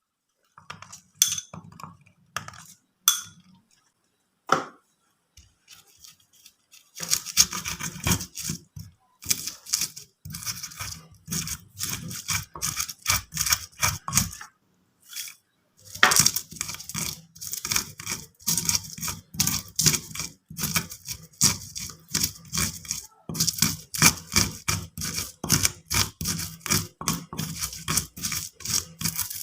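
Kitchen handling sounds: a dense run of quick scrapes, taps and clinks. It starts sparse, goes dead silent for a moment about four seconds in and again around fifteen seconds, and is otherwise continuous.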